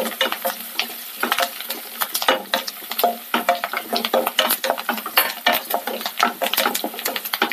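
Wooden spatula scraping and tapping against a white nonstick wok in rapid, irregular strokes as garlic, ginger, green chillies, dried red chillies and curry leaves are stirred in coconut oil. The tempering fries on low heat with a light sizzle.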